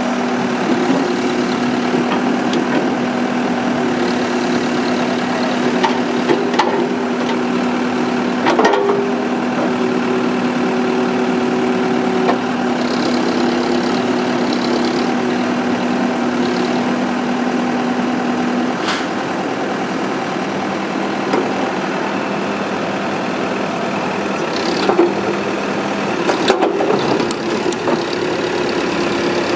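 2005 New Holland LB110B backhoe's diesel engine idling steadily, with a few short knocks or clanks over it.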